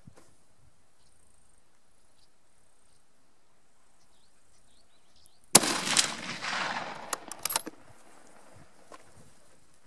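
A single shot from a 7x57 mm Mauser hunting rifle about five and a half seconds in, sudden and loud, with a rolling echo trailing off over about two seconds. A few sharp clicks follow near the end of the echo.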